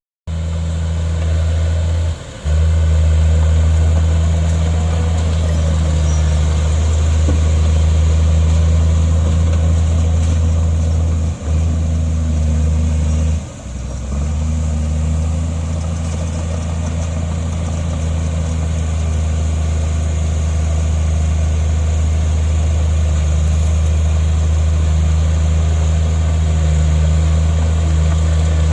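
Heavy diesel engine of earthmoving equipment running steadily at a constant deep drone, with a few brief drop-outs in the sound.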